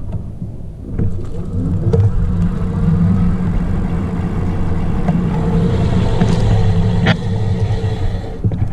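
Juiced HyperScorpion e-bike being ridden: a low rumble of tyres and wind with a steady motor tone that rises in pitch as it speeds up. Near the end the bike is brought to a stop on its new 203 mm floating front disc rotor, with a light hiss and a single click but no brake squeal.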